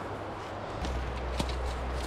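Footsteps crunching through dry leaf litter and twigs while climbing, with scattered small snaps and clicks. A low steady rumble comes in under them almost a second in.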